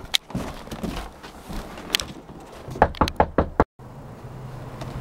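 Knuckles knocking on a front door: a quick run of about five raps a little under three seconds in.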